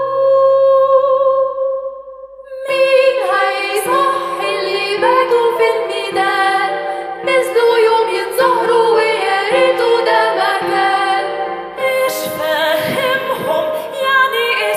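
Music: a long held sung note, which a woman's voice likely carries, ends about two seconds in, and after a short lull a fuller passage of many quick notes follows.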